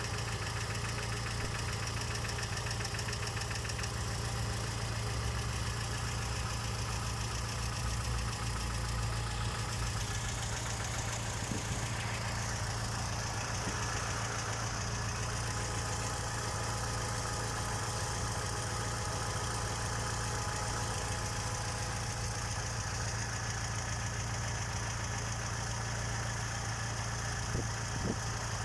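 Chevrolet Niva's engine idling steadily, with knocking from under the hood. The knocking is typical of this engine at idle: it comes and goes, is not heard while driving, and fades for a while after a blip of the throttle; its cause is not yet known.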